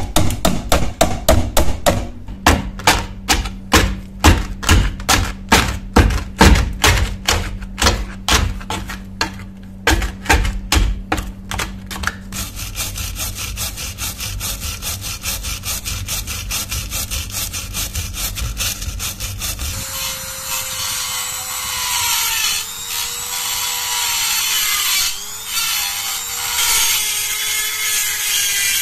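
A metal rod scraping and striking packed dirt and rust off a rusty steel shovel socket in quick repeated strokes, about three a second. About twelve seconds in this gives way to the steady scrub of a hand wire brush on a rusted rivet. About eight seconds later a small handheld rotary tool starts, its abrasive disc grinding the rivet with a wavering high motor whine.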